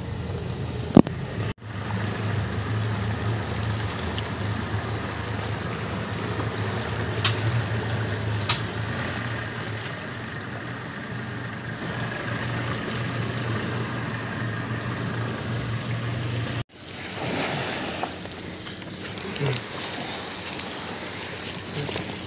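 Small boat's engine running steadily at low speed, with water rushing past the hull and a few sharp knocks. The engine sound stops abruptly about three-quarters of the way through.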